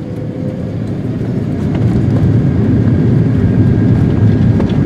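Cabin noise of an Airbus A380-861 on the ground, a steady low rumble from its Engine Alliance GP7270 engines and rolling gear. It grows louder over the first two seconds or so, then holds steady.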